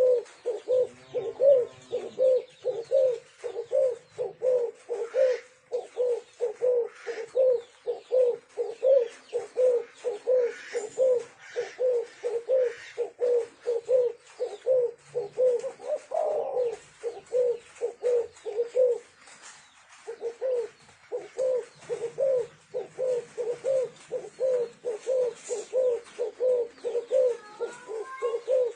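Spotted doves (turtledoves) cooing over and over in a fast steady rhythm of low notes, about two a second, with a short break about twenty seconds in. Faint higher chirps sound now and then above the cooing.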